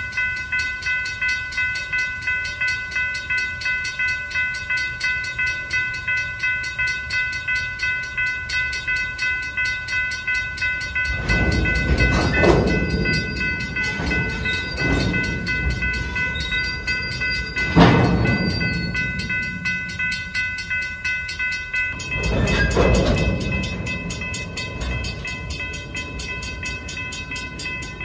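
Freight cars rolling slowly past on the rails, with a railroad crossing bell ringing steadily about twice a second. A few louder rumbles and metal clanks from the passing cars come around the middle.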